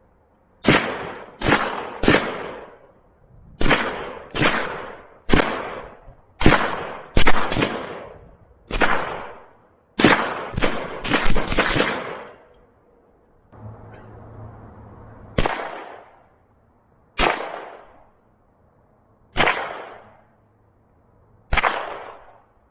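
A string of about twenty gunshots, each echoing out for about a second. They come in quick irregular bunches for the first dozen seconds, then slow to single shots about two seconds apart.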